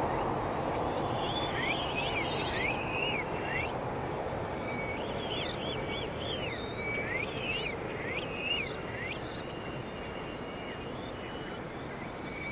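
Small birds chirping: quick notes that sweep up and down, in clusters, over a steady rushing background noise that slowly eases off.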